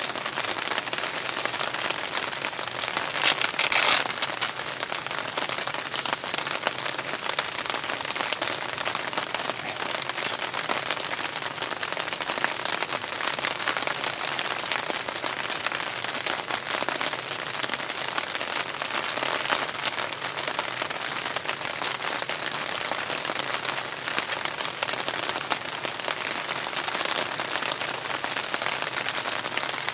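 Heavy rain falling steadily on a camping shelter, an even hiss of drops. A short burst of louder sharp clicks about three to four seconds in.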